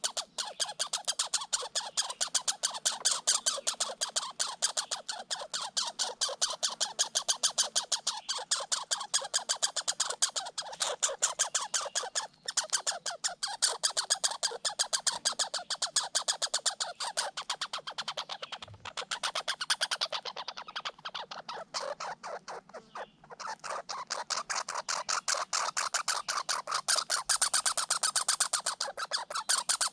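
Red squirrels chattering: a fast, unbroken rattle of clicks, many per second, broken only by a few short pauses. It is the territorial chatter of two squirrels fighting over food.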